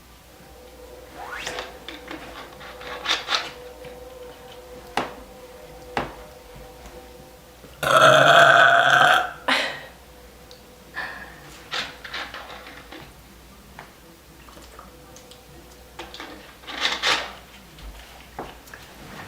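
A woman burping repeatedly after drinking carbonated cola: a string of short burps, with the loudest and longest, over a second, about eight seconds in.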